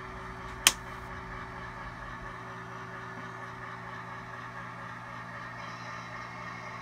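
A model railroad turnout being thrown, heard as one sharp click about two-thirds of a second in, over a steady hum with several fixed tones.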